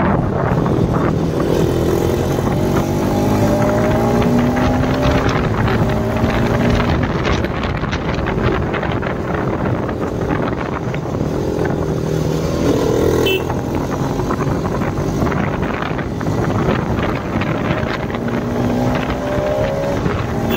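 Motorcycle engine running under way, its pitch climbing again and again as it accelerates through the gears.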